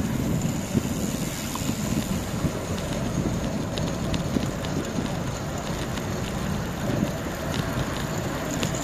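Steady wind noise buffeting the microphone of a camera carried on a moving bicycle, an even rushing noise strongest in the low end, with no clear tone.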